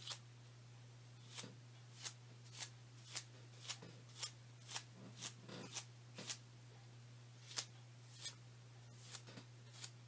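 Paintbrush bristles flicked back with a finger to spatter white paint, a string of short crisp flicks about two a second with a brief pause past the middle, over a steady low hum.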